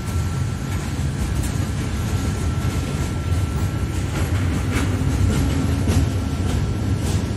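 Intermodal freight train's container and tank-container wagons rolling past: a steady low rumble of steel wheels on rail. Sharp clicks of wheels over the track come from about halfway through.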